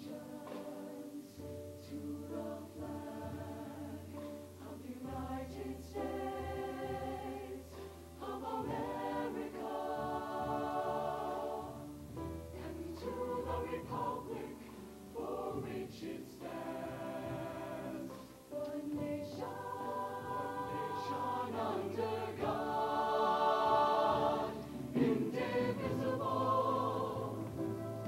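Mixed show choir singing a hand-on-heart patriotic number in parts, over held low accompaniment notes. It swells louder in the last few seconds.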